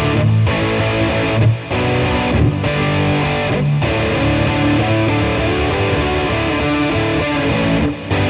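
Electric guitar played through a germanium OCD-clone overdrive pedal with its tone control fully open on the low-pass setting, into a Roland Blues Cube Artist amp: overdriven chords and riffs with plenty of low end, broken by a few short pauses.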